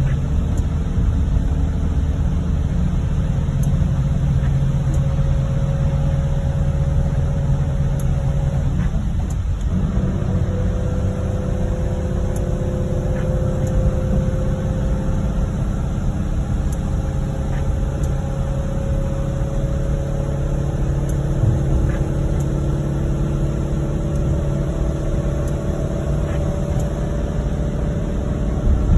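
Steady engine and road rumble of a car heard from inside the cabin while driving on a wet highway. The engine note slides slowly up and down, dips briefly about nine seconds in, then picks up and rises again.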